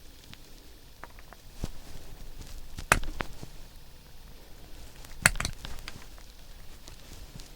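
Steel pipe wrench teeth working over the threads of a plastic tee fitting, chasing and cleaning damaged threads: light scattered clicks and scraping, with two sharp clicks, about three seconds in and again two seconds later.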